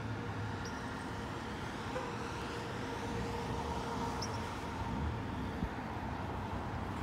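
Steady distant city traffic hum, with two brief faint high chirps about half a second and four seconds in.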